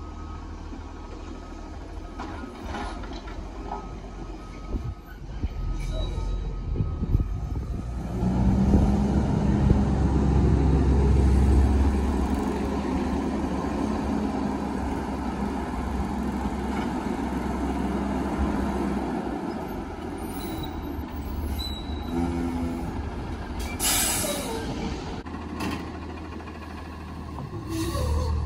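Autocar ACX Heil front-loader garbage truck's engine running, a few knocks early on, then revving up about eight seconds in as the truck pulls away and drives around. Sharp air-brake hisses come about 24 seconds in and again near the end as it pulls up to the dumpsters.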